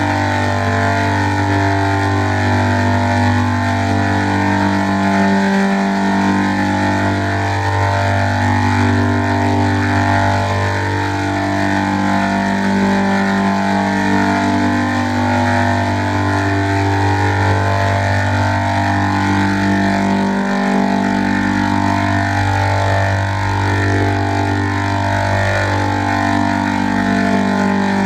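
Heavily processed, layered 'G-Major'-style audio edit: many stacked, pitch-shifted copies of a sound hold steady tones that change pitch every second or two over a continuous low drone, which drops out briefly twice.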